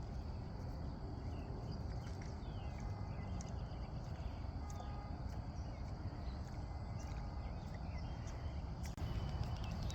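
Outdoor ambience by the water: a steady low rumble with faint bird chirps and a few light clicks scattered through.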